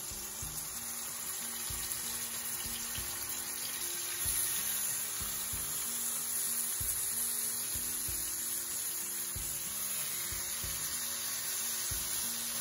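Seasoned tilapia fillets sizzling steadily in hot oil in a frying pan.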